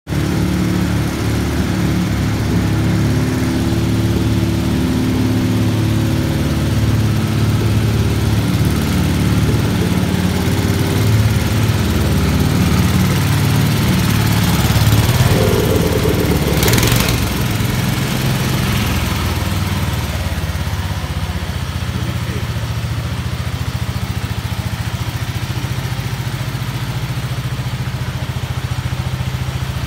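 Small garden tractor engine running steadily as an orange Sears garden tractor is driven slowly. There is a brief sharp noise about seventeen seconds in, and the engine settles to a lower, even note soon after.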